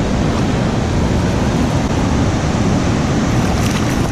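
Steady rush of flowing river current, loud and even with no distinct splashes.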